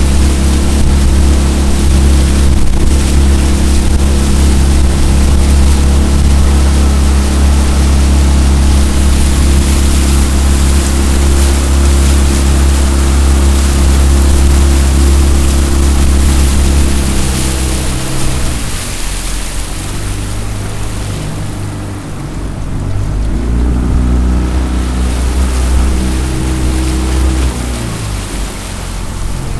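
Jon boat's outboard motor running steadily under way, throttled back about two-thirds of the way in, opened up again briefly, then eased off near the end. Water rushes past the hull throughout.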